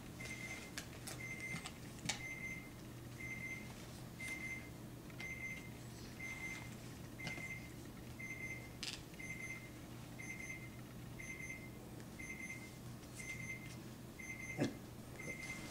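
Steady electronic beeping: a short high-pitched beep about once a second, repeating evenly. A few light knocks are heard, one about two seconds in and another near the end.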